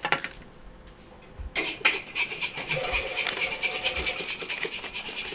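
A rapid rasping scrape starting about a second and a half in and running almost to the end, with a steady high ringing tone through it.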